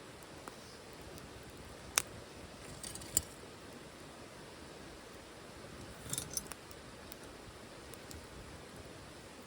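Wood fire in a titanium wood stove, a steady low hiss broken by sharp clicks and pops: a loud one about two seconds in, another about a second later, and a quick cluster a little past the middle.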